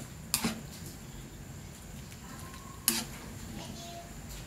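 A ladle stirring chicken pieces in broth in a large metal wok, knocking against the pan: two sharp clanks about two and a half seconds apart.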